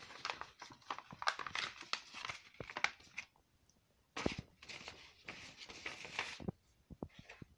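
Paper envelope rustling and crinkling as it is handled, in two stretches with a short pause between them.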